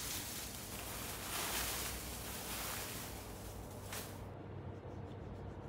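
Dry curled oak shavings rustling and crackling as handfuls are lifted and dropped. The sound stops suddenly about four seconds in.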